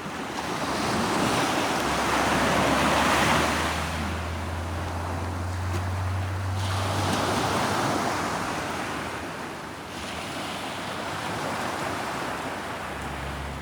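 Ocean surf breaking and washing over shoreline rocks, swelling up twice a few seconds apart. A low steady hum runs underneath for a few seconds in the middle.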